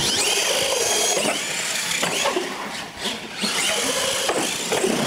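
Radio-controlled monster truck driving, its electric motors and gears whining and rising and falling in pitch with the throttle, easing off briefly about three seconds in.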